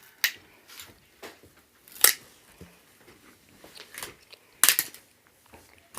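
Sharp clicks and cracks of a tablet's plastic and glass screen layers being pried and peeled apart by hand: about half a dozen separate snaps, the loudest about two seconds in and a close pair near the end.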